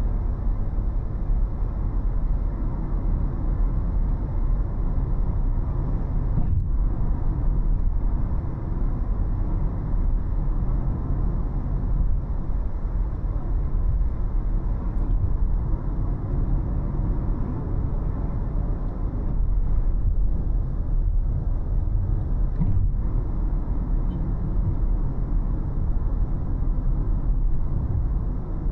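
A car driving along city streets: a steady low rumble of engine and road noise with no clear changes.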